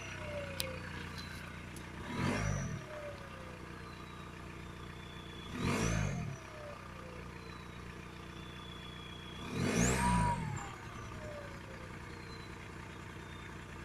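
Volkswagen Golf Mk4 1.9 TDI four-cylinder turbodiesel idling, blipped three times. At each blip the turbocharger whistles, rising sharply in pitch, then falls away slowly as it spools down.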